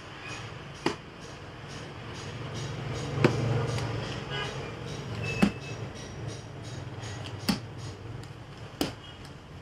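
Domino playing cards slapped down one by one onto a tabletop: five sharp smacks spread a second or two apart, over a low room murmur.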